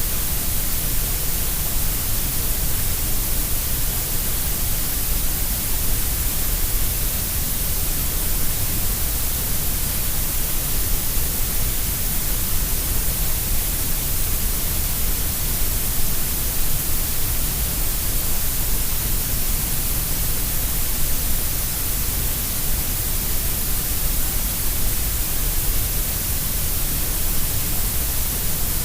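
Steady grey noise: an even, unchanging hiss shaped to sound equally loud at every pitch, fuller in the deepest lows and the highest highs than in the middle.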